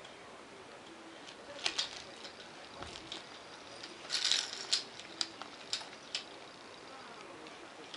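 Small plastic clicks and rattles from a baby play gym's hanging toys and their plastic rings as they are batted and swing: a couple of clicks about two seconds in, a louder rattling cluster around four seconds, then single clicks about every half second.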